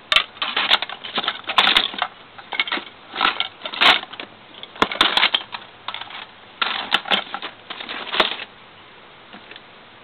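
Plastic Lego bricks clattering and clicking against one another as a hand rummages through a container of them, in irregular bursts that stop about eight seconds in.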